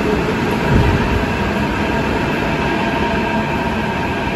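A Delhi Metro electric train pulls in alongside the platform: a steady electric whine of several held tones over the rumble of wheels on the rails, with a brief low thump about a second in.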